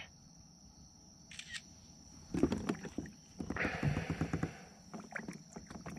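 Quiet at first, then a run of small clicks and knocks from gear being handled aboard a kayak, with a short rush of noise about three and a half seconds in.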